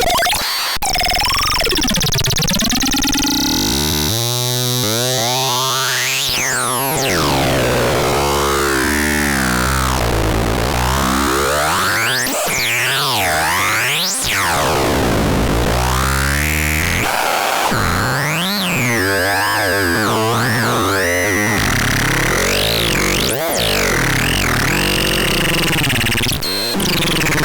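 MARADAPAX C 3066 electronic sound generator putting out harsh, noisy synthesizer tones. The pitch keeps sweeping up and down in glides and warbles, with no steady beat.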